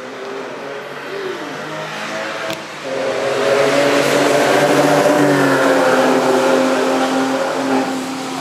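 A car engine accelerating past on a wet road, with tyre hiss. The engine note comes up sharply about three seconds in, stays loud for several seconds, then fades near the end.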